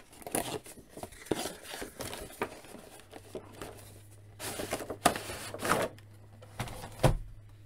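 Cardboard box and clear plastic blister tray of an action-figure package rustling and scraping as the tray is slid out of the box, in a series of short crinkling scrapes with a few sharp clicks. The scrapes are loudest a little past the middle.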